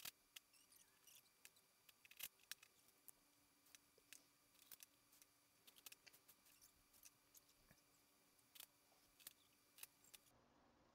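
Near silence with faint, irregular light clicks scattered throughout.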